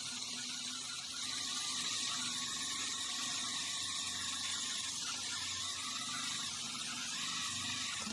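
Electric drill spinning a hole saw as it cuts into wood: a steady motor whine over the hiss of cutting.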